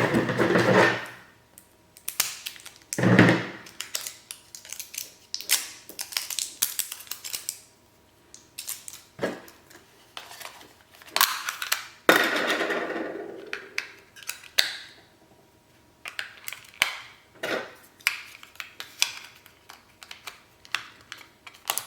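Unboxing handling noise: packaging and plastic parts being handled, with bursts of rustling and many sharp clicks and knocks.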